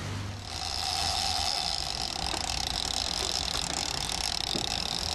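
Big-game lever-drag trolling reel's drag screaming steadily as a hooked wahoo runs line off it, starting about half a second in. A boat engine rumbles low underneath.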